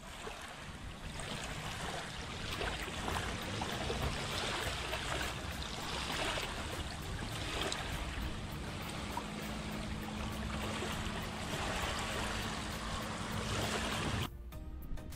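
Small waves lapping and washing over the sandy shore right at the microphone, a steady rush of water that stops abruptly about a second before the end.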